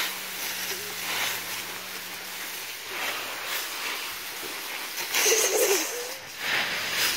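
Dry fallen leaves rustling in several bursts as a small dog runs and pounces through a leaf pile, over a steady hiss. A short wavering sound comes in about five seconds in.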